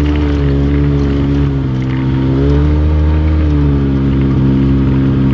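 ATV engine running while riding, its pitch rising a little about two seconds in and easing back down.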